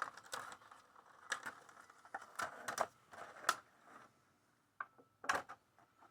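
Packaging and small parts being handled by hand: a scattering of light clicks and crinkly rustles, with a short lull a little past the middle.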